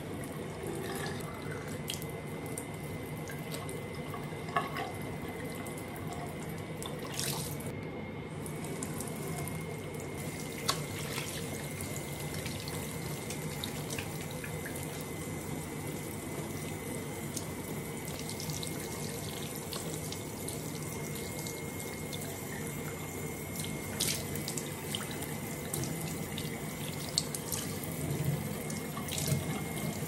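Bathroom sink faucet running steadily into the basin. Scattered small splashes and clicks come through as hands are washed under the stream.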